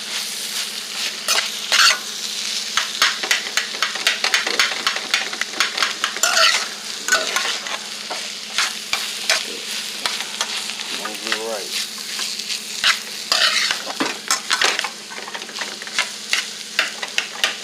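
Cooked rice being stir-fried in a hot pan: a steady sizzle with frequent sharp clicks and scrapes of the utensil against the pan as the rice is stirred and turned.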